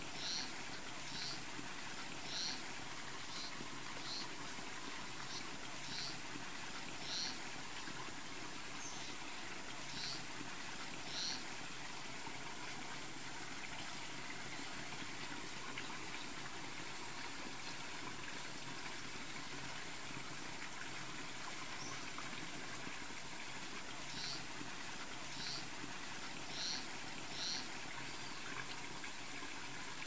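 Wetland ambience: a steady high-pitched insect drone that pulses on and off. Over it come short high chirps, about one a second, through the first third and again near the end.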